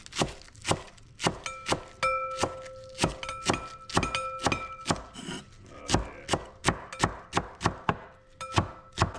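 A kitchen utensil knocking repeatedly and unevenly, about two to three times a second. Some of the knocks leave a short metallic ring.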